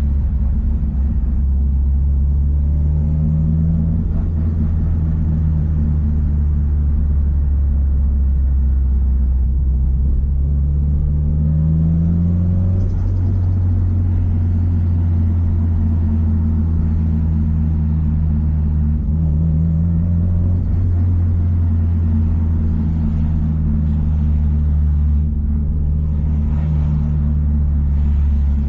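Subaru Impreza WRX STI's EJ207 turbocharged 2.0-litre flat-four engine running at fairly steady low revs, a deep drone whose pitch climbs gently a few times as the car is driven.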